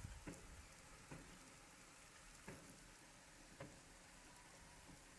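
Heavy rain falling, heard faintly as a steady hiss with a few louder drops tapping now and then.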